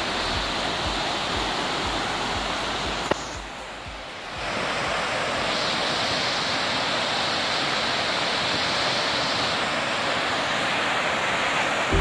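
Steady rushing roar of a large waterfall. About three seconds in there is a sharp click, and the sound drops away for about a second before the rush of water comes back.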